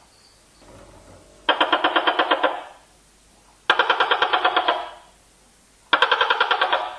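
Tokay gecko calling: three rapid pulsing, rattling calls, each just over a second long, about two seconds apart.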